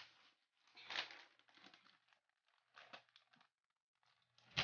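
Plastic bag of powdered laundry detergent crinkling as it is handled, in several short rustles, the loudest near the end.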